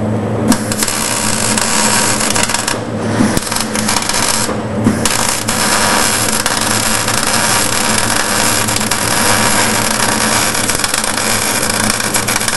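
Electric arc welding: a loud, dense crackling hiss of the arc, struck about half a second in, broken off briefly twice in the first five seconds and then held steadily, over a low electrical hum.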